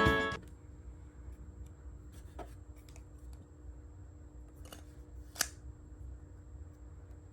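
Background music ends right at the start. Then come faint clicks and rubbing from something being handled over a low steady hum, with one sharper click about five seconds in.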